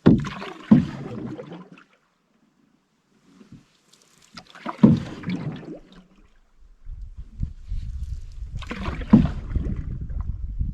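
Canoe paddle strokes in lake water, three of them about four seconds apart, each a splash and swirl that fades over a second or so. Low wind rumble on the microphone comes in during the last few seconds.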